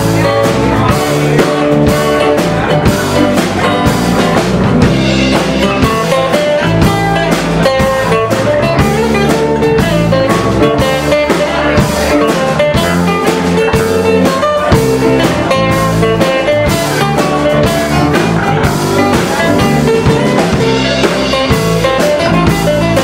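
Live band playing a slow blues on keyboard, acoustic guitar, electric bass and drum kit, with a steady drum beat.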